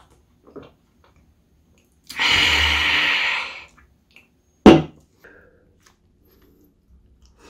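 A can of Terra beer hissing for about a second and a half as it is opened, then a single sharp knock as the can is set down on the table.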